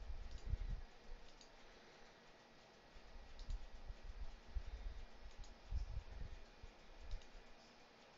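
Faint computer mouse clicks, a handful spread out over quiet room noise, with a few low dull thumps.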